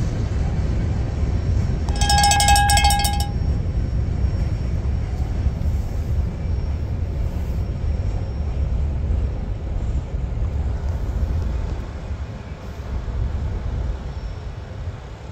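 Low steady rumble of a car driving beside a freight train rolling by, heard from inside the car, easing off near the end. About two seconds in, one loud high-pitched tone sounds for about a second.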